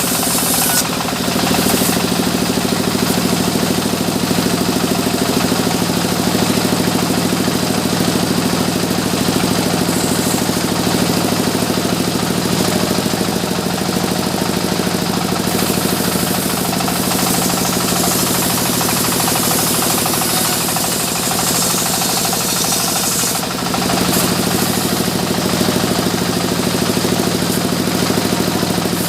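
Sawmill machinery running loudly and steadily, an engine-driven saw with a constant mechanical hum, with a brief dip about three quarters of the way through.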